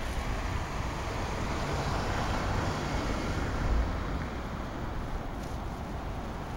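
Street traffic noise with a vehicle swelling past about two to three seconds in, over a low, uneven wind rumble on the microphone.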